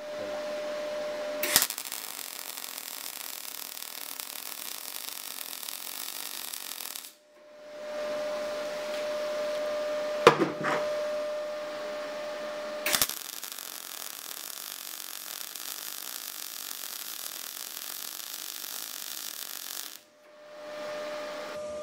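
MIG welding arc from an RTEC MIG 180 inverter welder, 0.6 mm wire under argon with 5% CO2 on 3 mm carbon steel at the manual's recommended settings, running steadily in long runs with brief breaks about 7 and 20 seconds in. A sharp pop stands out about 10 seconds in.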